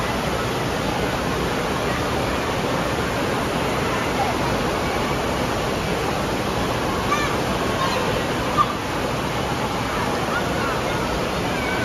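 Steady rush of water gushing out of a tube water slide's outlet into a churning splash pool. Faint voices and shouts come in over the later part.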